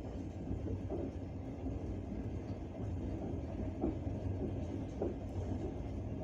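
Passenger train carriage running along the track, with a steady low rumble of the wheels on the rails and a few single knocks as the wheels pass over rail joints, heard from inside the carriage.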